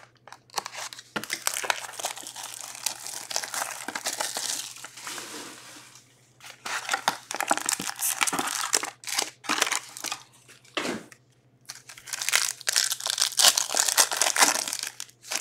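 Plastic shrink wrap crinkling as it is slit and peeled off a hockey card box, then a foil card pack crinkling and tearing open. The crackling comes in bouts, with short pauses about six seconds in and again near eleven seconds.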